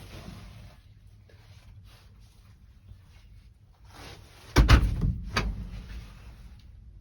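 Rustling, then two loud knocks and clatters about a second apart, about four and a half seconds in, from handling things or a sliding window inside a hunting box blind.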